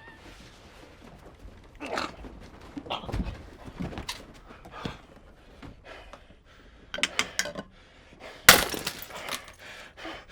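Scuffling and scattered thuds of a staged fight, with a sharp crash about eight and a half seconds in, the loudest sound.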